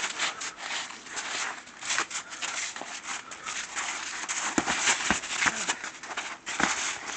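Boxing gloves smacking and feet scuffing and crunching in snow during sparring, with a few sharper thuds in the second half.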